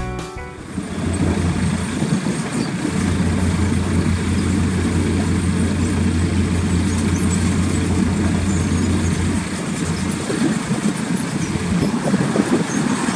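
Diesel engine of potato-harvesting farm machinery running with a steady low drone over rough rumbling machinery and wind noise; the drone drops away about nine or ten seconds in while the rumble continues.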